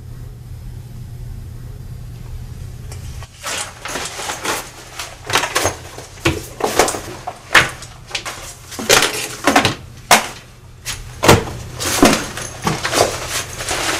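A low steady hum, then from about three seconds in a quick, irregular run of knocks, clatters and rustles as books and small objects are grabbed off a desk and handled.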